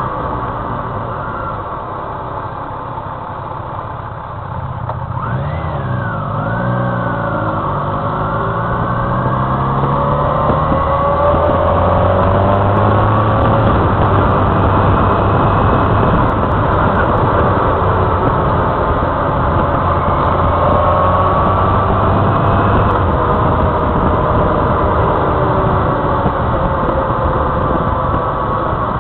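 Motorcycle engine running under way, mixed with wind and road noise. Its pitch rises and falls with throttle and gear changes. The engine dips around four seconds in, then climbs and holds a fairly steady note.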